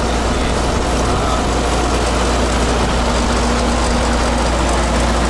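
Tractor diesel engine running steadily, a constant low hum.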